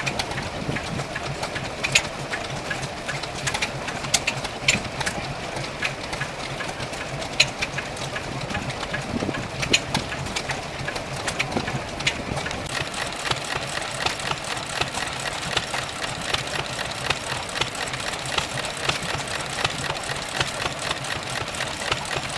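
Vintage stationary engine with twin flywheels running: a steady mechanical clatter, with sharp, louder beats every two seconds or so in the first half.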